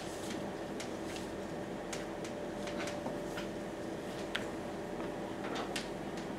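Classroom room tone: a steady hum with a few small clicks and taps scattered through it.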